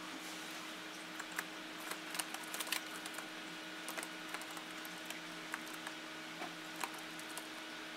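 Light, irregular clicks and taps of a budgerigar's feet on laptop keyboard keys as it steps about, busiest about two to three seconds in, over a steady low hum.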